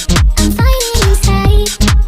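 Background music with a steady kick-drum beat, about two beats a second, under a melody line.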